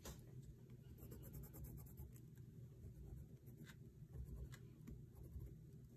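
Faint scratching of a colored pencil on paper as it shades in a few short strokes, with a light tap at the very start.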